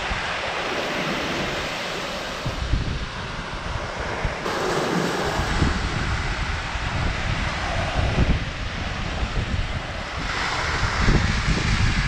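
Small surf washing onto a sandy beach, with wind rumbling on the microphone.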